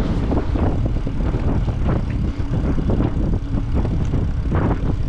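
Wind buffeting the microphone, a loud, unsteady low rumble, as from moving fast downhill.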